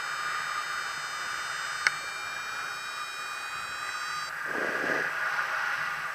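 Steady rush of air past a paraglider pilot in flight, with a thin high steady whine that cuts off about four seconds in, and a gust of wind hitting the microphone a little later.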